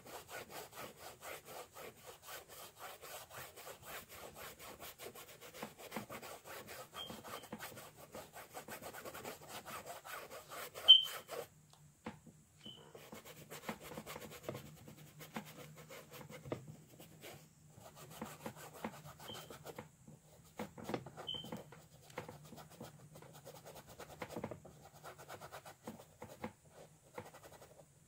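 Paintbrush scrubbing acrylic paint onto canvas in quick back-and-forth strokes, a dry scratchy rubbing. There is one sharp tap about eleven seconds in, the loudest moment. After a short pause the strokes come back in shorter, more broken spells.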